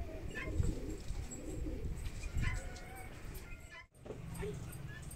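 Pigeons cooing, with a few faint clicks. The sound cuts out briefly near the end.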